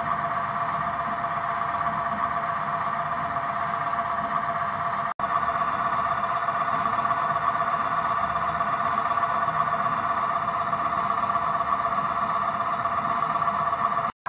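Diesel engine sound from the sound decoder of a Roco HO-scale model of the SBB Beilhack snow blower, played through the model's small loudspeaker: a steady running sound with little bass. It cuts out for an instant about five seconds in.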